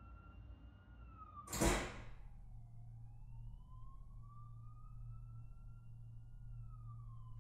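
A faint siren wailing, slowly rising and falling in pitch, over a steady low hum. About a second and a half in, a short loud rush of noise cuts across it.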